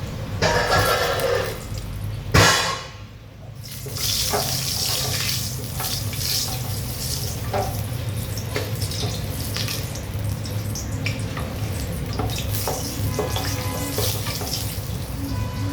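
Water running from a tap into a kitchen sink, with small clinks of utensils and one sharp knock about two seconds in.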